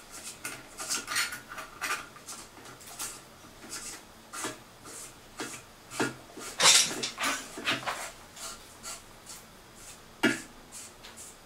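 A brass locknut spun by hand up the threaded tail of a washbasin pop-up drain against its rubber washer: irregular small clicks, scrapes and rubbing of metal on thread, with the loudest knocks about six and a half and ten seconds in.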